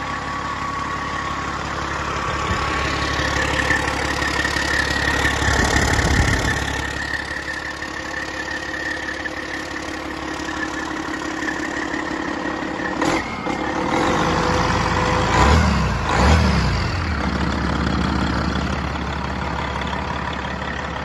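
Detroit Diesel Series 60 12.7-litre non-EGR DDEC IV inline-six diesel engine running on a test stand. The steady running grows louder twice, about a quarter of the way in and again just after the middle, and a short click comes a little after the middle.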